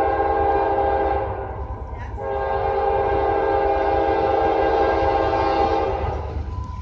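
Locomotive air horn sounding a chord in two long blasts, the first cutting off about a second and a half in and the second starting about two seconds in and holding for nearly four seconds, over the low rumble of a passing train.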